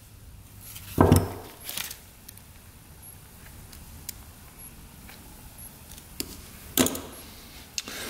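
Small metal carburetor parts and tools being handled: a sharp knock about a second in, a smaller one just after, another loud knock near the end, and a few light ticks in between.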